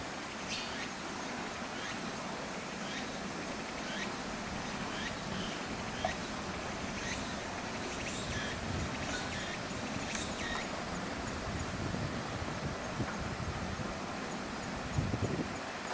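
Outdoor ambience: a steady background hiss with many short, high, falling chirps about once a second. A thin high hiss joins from about ten seconds in, with a couple of soft knocks near six seconds and near the end.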